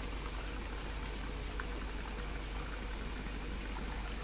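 Steady high-pitched chorus of night insects such as crickets, over a continuous wash of noise, with a few faint ticks.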